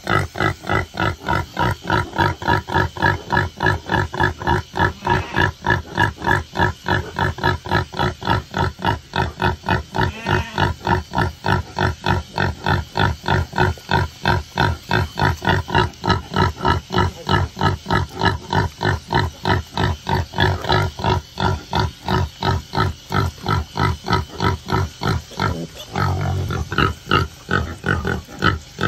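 Sow grunting in a fast, even rhythm of about three grunts a second while her piglets suckle: the rhythmic nursing grunts of a sow letting down milk. Near the end the rhythm breaks up and turns irregular.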